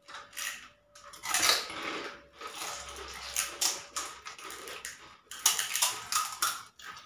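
Crisp fuchka (pani puri) shells being cracked open with fingers and crunched, in an irregular run of crackles and snaps, with light clinks of a steel bowl.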